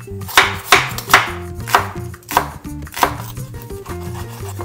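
Kitchen knife slicing raw pork hind-leg meat on a wooden cutting board: a steady series of cuts, about two a second, each ending in a knock of the blade on the board.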